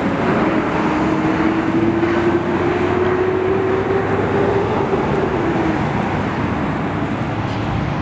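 Boulder Creek in flood, its high water rushing in a steady, loud noise. A steady motor hum sits over it and fades out about six seconds in.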